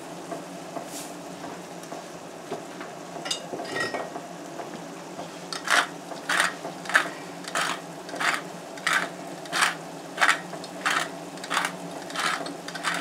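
A tall stainless-steel pepper mill being twisted over a pan, grinding pepper in a steady run of about a dozen short strokes, roughly one and a half a second, starting about six seconds in. Under it, ground meat and onions sizzle faintly in a frying pan, and a salt shaker gives a few light rattles about three seconds in.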